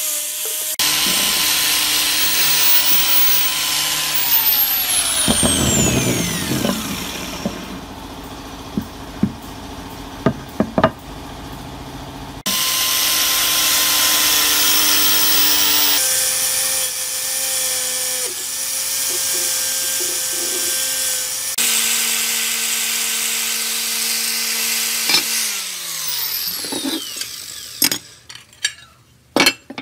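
Angle grinder with a red abrasive disc running and grinding rust off steel parts, its pitch falling twice as it spins down between passes. A few sharp knocks near the end.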